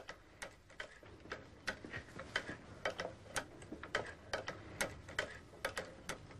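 Cobbler's leather-sewing machine running, its cam-driven mechanism clicking at about three to four clicks a second in a slightly uneven rhythm.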